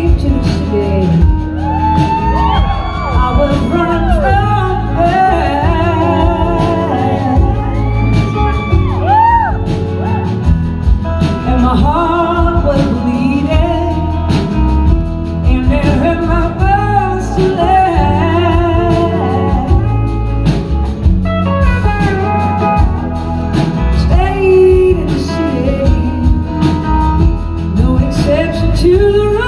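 Live blues-rock band playing loud, with a woman singing lead over electric guitars, bass and drums. Wavering, gliding notes from the voice and guitars run over a steady heavy low end.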